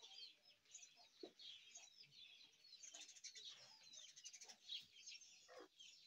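Faint, dense chirping of many small birds at once, short high chirps overlapping continuously.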